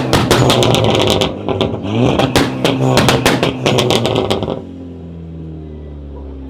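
Tuned sports car's engine revved hard several times, with rapid exhaust pops and crackles on each rev. About four and a half seconds in it drops to a quieter, steadier run with the pitch easing down.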